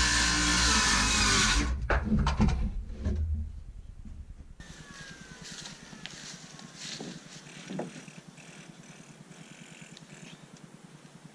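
Cordless circular saw cutting through OSB sheathing, then spinning down with a few clicks. After that, a couple of quieter sharp shots from a cordless framing nailer fastening OSB panels.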